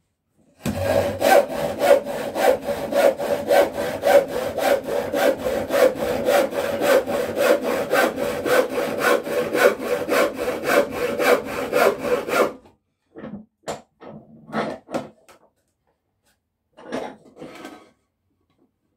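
Hand saw cutting through a piece of timber in steady back-and-forth strokes, about three a second, stopping about twelve seconds in. A few short, separate scrapes follow.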